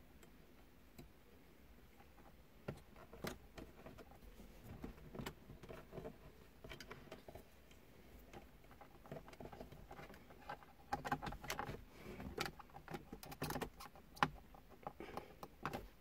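Faint clicks and rustling of insulated wires and crimp spade connectors being handled and pushed together. The clicks come closer and louder near the end.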